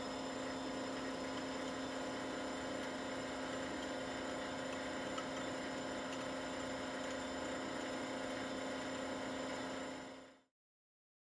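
Laboratory vacuum pump running steadily as it evacuates a bell jar: a constant hum with a few steady tones. It fades out about ten seconds in.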